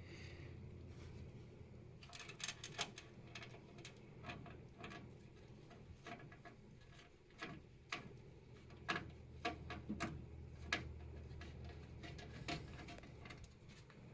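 Light clicks and taps at irregular intervals, a few at a time: small screws being driven in with a screwdriver to fasten a motherboard into a PC case.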